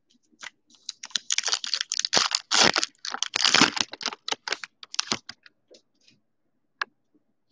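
Foil wrapper of a trading-card pack crinkling and tearing as it is ripped open, a dense run of crackles lasting about four seconds, then a few light clicks as the cards are taken out and handled.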